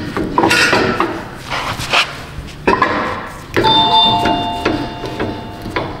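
Metal clanks and scrapes from a two-post car lift's steel arms and pads being swung and set under a car. Past the middle, one clank is followed by a ringing tone that lasts about two seconds.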